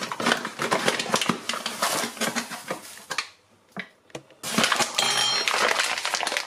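Paper bag of caster sugar rustling and crinkling while a metal spoon scrapes and crunches through the sugar, with many small clicks. After a short pause there is more rustling, and a brief metallic clink of the spoon about five seconds in.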